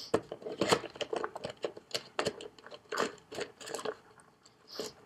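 Small rocks being put into the cut-off bottom of a plastic 2-liter bottle, making irregular clicks and knocks as they hit the plastic and each other.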